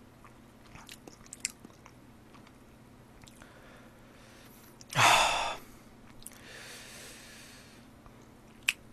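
A man's mouth sounds while tasting a fizzy drink: a few small lip smacks and clicks, then a short, loud burst of breath about five seconds in, followed by a longer, softer breathy exhale.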